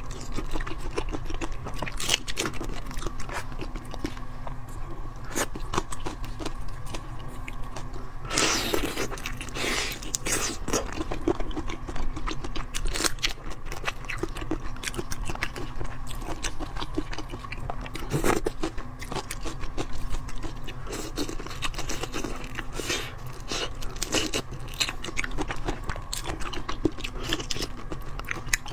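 Close-miked chewing and biting of whole marinated shrimp, with crunching of the shells and many small wet clicks. There is a louder stretch of crunching about a third of the way in and a sharp bite a little past the middle.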